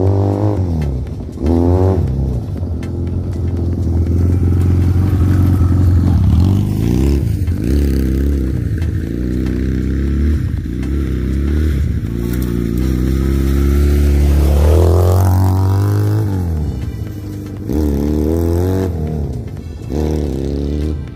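Chinese 250cc ATV's single-cylinder engine running under load as it is ridden, its pitch climbing and dropping back several times as the throttle is worked and it is shifted through the gears.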